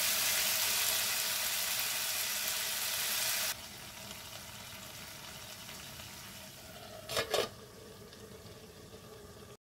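Potato, pea and vegetable mixture sizzling in oil in a karahi, a steady hiss that drops suddenly about a third of the way in to a quieter sizzle. Near the end come two quick clanks as a steel lid is set on the pan to steam the dish on dum.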